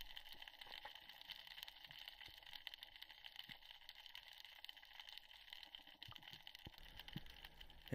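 Near silence: a faint steady hiss with light, scattered crackling.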